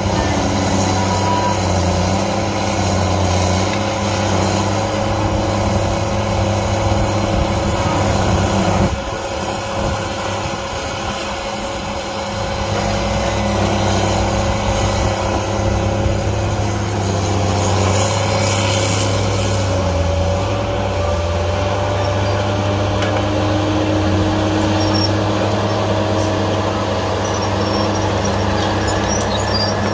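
Tracked feller buncher's diesel engine running steadily under load while the machine travels, with a whine that climbs slowly in pitch. The engine eases off for a few seconds about nine seconds in, then comes back up.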